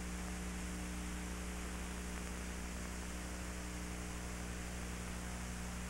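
Steady electrical mains hum under an even hiss: the background noise of an old recording, with no other sound.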